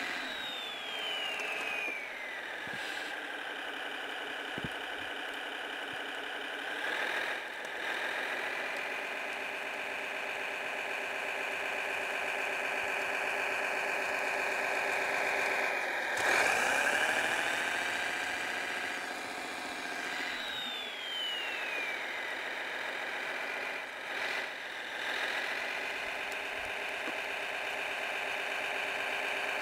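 Simulated engine sound of a Kyosho Blizzard DF-300 RC snowcat, played by its Servonaut SMX sound module through a small speaker with no deep bass. It runs steadily, its pitch falling away near the start and again around 20 seconds, and briefly rising with throttle about 16 seconds in.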